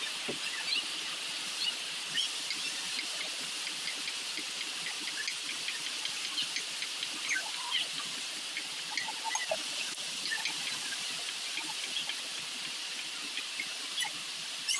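A kitchen knife slicing fresh ginger on a wooden chopping board, giving soft, irregular cutting taps. Behind it is a steady outdoor hiss with many short, high chirps scattered throughout.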